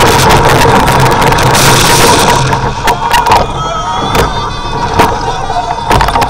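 Wind rushing over the microphone and the rumble of a suspended roller coaster train running along its track, with many sharp knocks and rattles. Riders yell over it.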